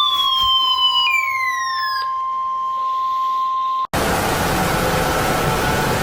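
Emergency Alert System attention tone: a steady high tone with falling, sliding tones layered over it, which cuts off abruptly about four seconds in. Loud hissing static with faint steady tones in it follows.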